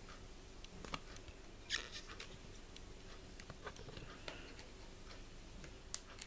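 A few faint clicks and scrapes from fingers handling and picking at the cardboard-and-plastic blister pack of a microSDHC memory card.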